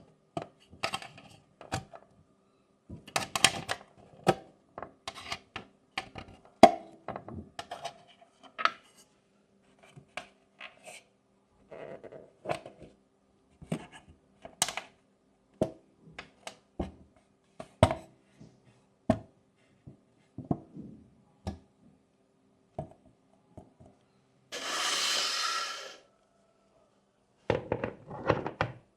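Irregular small clicks, taps and knocks of a DIY fidget board and its toy pieces being handled. Near the end there is a rasping noise lasting about a second and a half.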